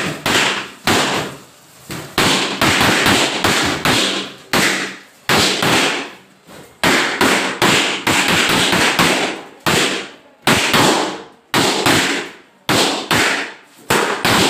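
Rubber party balloons being popped one after another by children pressing and stamping on them: a rapid, irregular string of loud bangs, about two a second, each fading out quickly.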